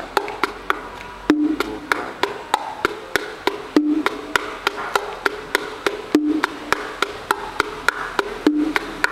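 Bongos played by hand in a steady Cuban son rhythm, the martillo pattern: a run of quick, sharp strokes, with a lower ringing open tone that comes round about every two and a half seconds.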